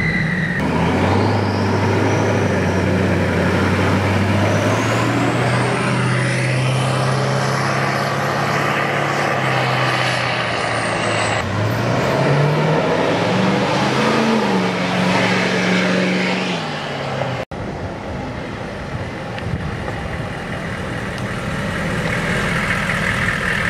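Hummer H1's 6.5-litre turbodiesel V8 driving off, with a high whistle rising and falling over the engine. About halfway through the engine pitch climbs as it accelerates. The sound cuts out for an instant near the three-quarter mark.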